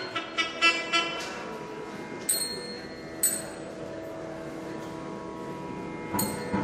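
Thavil drum played sparsely: a few quick strokes in the first second, two single ringing strikes in the middle and more strokes near the end. A steady drone holds underneath throughout.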